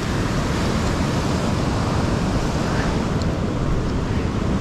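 Ocean surf washing up a sandy beach, a steady rushing noise with wind rumbling on the microphone.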